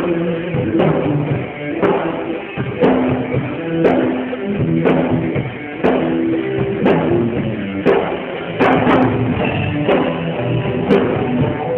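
Rock band music: guitar chords over a drum kit, with a heavy hit about once a second.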